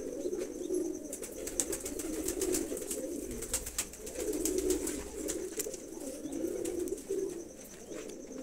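Domestic pigeons in their wire coops cooing, one low, wavering coo after another with hardly a break.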